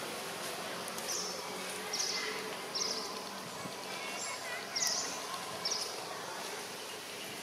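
Steady insect buzzing in woodland, with five short high chirps scattered about a second apart.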